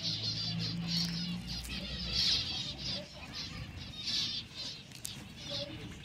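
Finches chirping in short bursts of high twittering, several times over, with a steady low hum under the first half.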